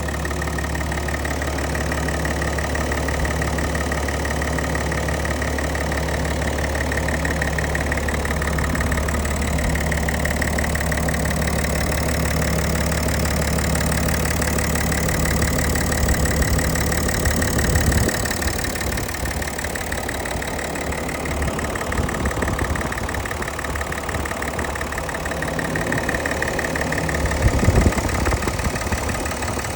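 BMW 330d's 3.0-litre straight-six diesel running with a steady low hum. Under it is the wobbling, pulsating noise the owner traces to the brake vacuum pump, its beat carried along the vacuum pipe into the firewall. The hum roughens about two thirds of the way through, with a louder rumble near the end.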